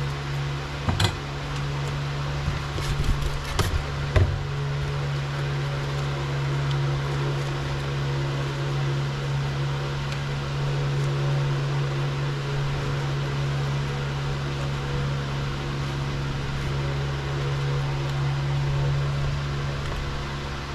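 Steady machine hum, like a running fan or motor, continuing unchanged. A few sharp clicks and knocks of small metal parts being handled come about a second in and again between two and four seconds in.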